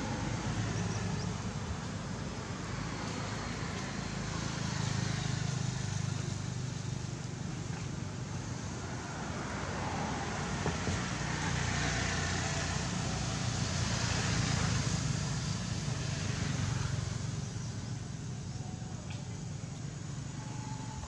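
Road traffic: a steady low engine rumble with tyre noise, swelling about five seconds in and again around twelve to fifteen seconds in as vehicles pass, easing off near the end.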